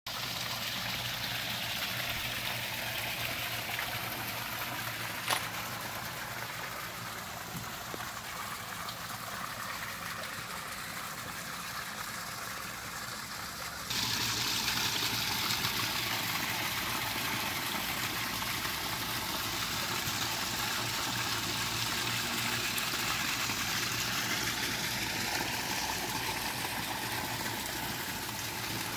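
Small garden-pond waterfall splashing steadily from a stacked stone wall into the pool, louder from about halfway through. A single click about five seconds in.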